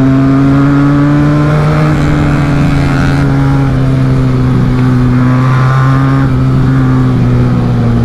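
Motorcycle engine heard from the rider's seat, running at a steady cruising speed with its pitch rising slightly in the first second and a half, then holding nearly level.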